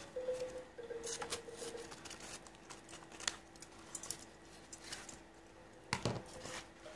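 Hands handling and folding a sheet of embossed paper tissue: soft rustles and crinkles of the paper, with a knock about six seconds in.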